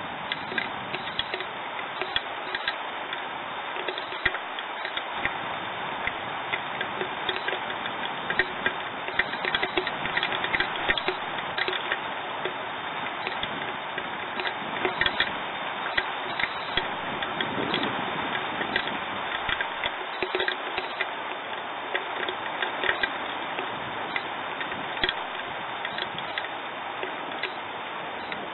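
Steady rain hiss with many irregular sharp ticks of raindrops striking close by.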